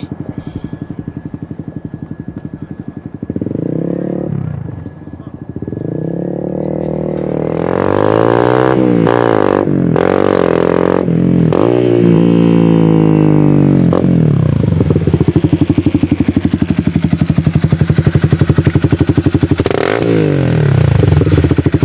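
Honda CBR motorcycle with an M4 carbon aftermarket exhaust running, first at a steady low engine note, then revved briefly. It then grows loud as the bike rides by, its pitch climbing and then sweeping down, and it rises again near the end.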